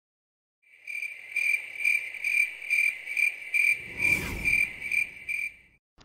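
Cricket-like chirping: a high, even chirp repeated about twice a second. A whoosh sweeps through about four seconds in.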